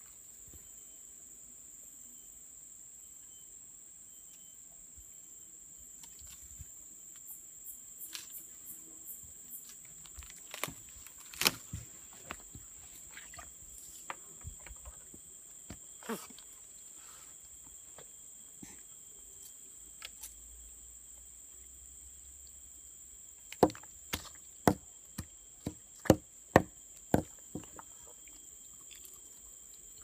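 A steady high-pitched insect drone, with sharp cracks and snaps of an orangutan biting and tearing splinters off a wooden stick. The cracks are scattered at first, then come loudest in a run of about eight over a few seconds, a little past two-thirds of the way through.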